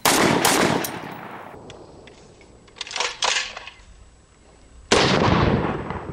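AR-style semi-automatic rifle firing during a timed stage. A quick string of shots comes at the start, two more follow about three seconds in, and a single shot comes near five seconds, each with a long echoing tail.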